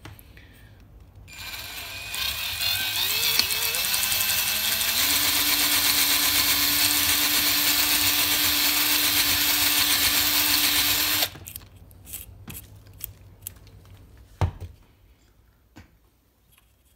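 Power drill boring a hole into a wooden dowel lure body with a twist bit, the hole for a lead keel weight. The motor note rises over the first few seconds, runs steady, then stops suddenly about eleven seconds in, followed by a few light knocks and one sharper knock.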